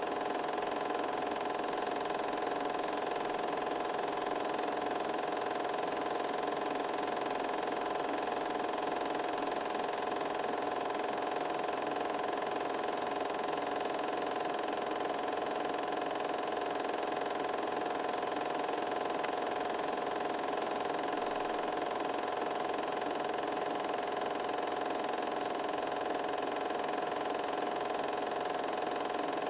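Home-movie film projector running: a steady mechanical whir with a constant hum that does not change.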